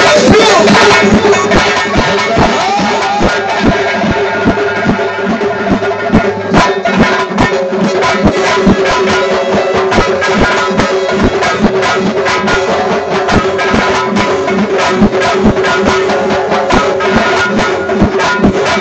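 Live band music: goblet drums (darbukas) and a frame drum keep a fast, dense rhythm under a keyboard holding a steady note, with a sliding pitch bend near the start.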